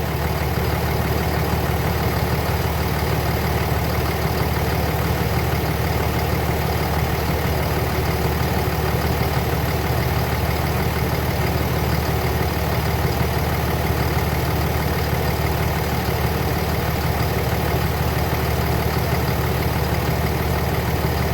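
Car engine idling steadily with the air-conditioning compressor running while refrigerant is charged into the low side.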